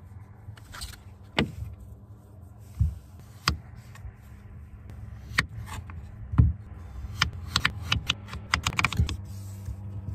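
Knife cutting a raw potato into slices and fries on a wooden cutting board: irregular sharp knocks of the blade striking the board, coming faster in a flurry near the end, over a steady low hum.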